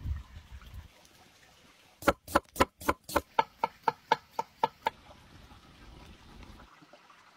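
A dog barking rapidly: about a dozen short, sharp barks at roughly four a second, growing fainter toward the end.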